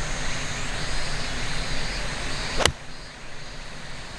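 Steady background hiss, then about two and a half seconds in a single sharp crack of a 6-iron striking a golf ball off the fairway turf.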